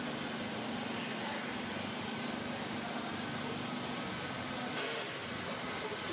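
Handheld hot-air roofing welder running steadily, its blower giving a constant hiss over a low hum as it heat-welds TPO membrane flashing around a pipe boot.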